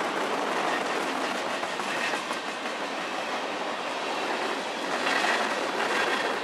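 Freight train of tank cars rolling past close by, steel wheels running on the rails, in heavy rain.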